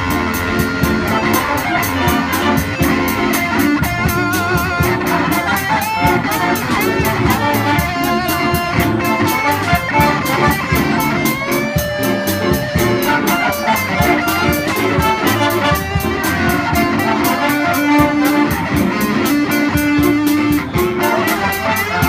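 A jazz band playing a lively piece, with a steady beat carried by the drums and cymbals.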